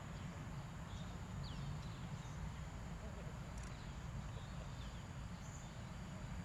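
A few short, high bird calls, each a quick downward-sliding note, spaced a second or more apart over a steady low rumble.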